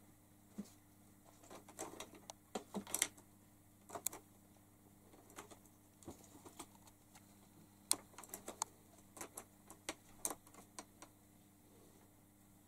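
Irregular light clicks and taps of a cat's paws moving over a cluttered desk top, in two flurries, about two seconds in and again about eight seconds in, over a faint steady hum.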